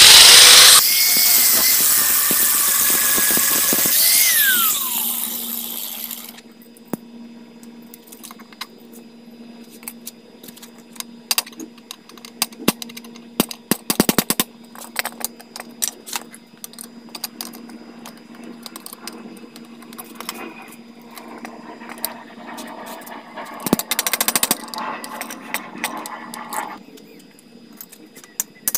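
Angle grinder cutting into a steel pipe, with a loud whine, then winding down with a falling pitch about five seconds in. It is followed by a long run of irregular sharp taps from a hammer striking a steel punch held against the pipe.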